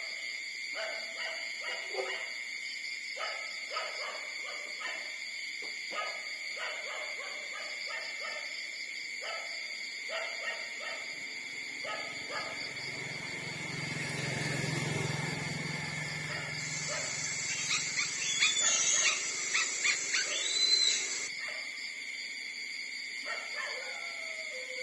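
Newborn puppies whining and squeaking in short cries as they jostle to nurse from their mother. About two-thirds of the way through comes a louder run of high squeals. A steady high-pitched tone runs underneath throughout.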